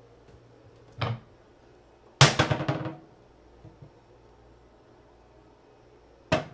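Wooden kitchen cabinet doors being opened and shut by hand: a knock about a second in, then a louder rattling clatter lasting under a second, and a sharp snap near the end.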